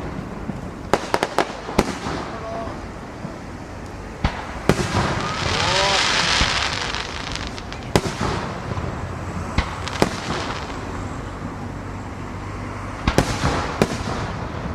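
Aerial fireworks shells bursting, about ten sharp bangs spread irregularly, some in quick clusters, with a loud stretch of hiss about midway.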